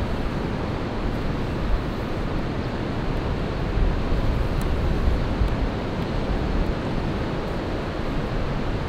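Wind buffeting the camera's microphone: a steady rushing noise, heaviest in the low rumble.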